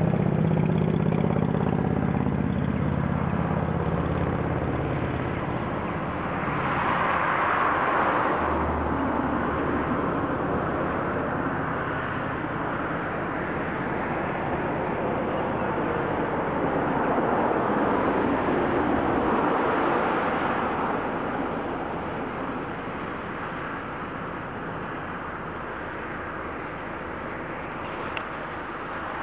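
Road traffic: a car engine hum that drops in pitch over the first few seconds, then two louder swells as vehicles pass, about seven and nineteen seconds in.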